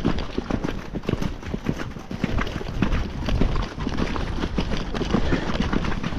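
A ridden horse's hoofbeats: a quick, continuous run of dull thuds over a steady low rumble.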